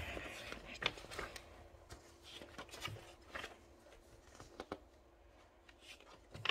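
Paper magazine pages being handled and turned: faint rustling with scattered soft clicks and taps.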